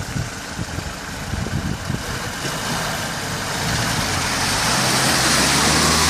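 Lada Niva 2121 engine running under load as the car pulls through a deep muddy rut, growing steadily louder from about two seconds in.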